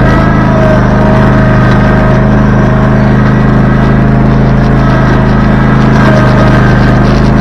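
An engine running steadily at a constant speed, a loud even hum with no change in pitch.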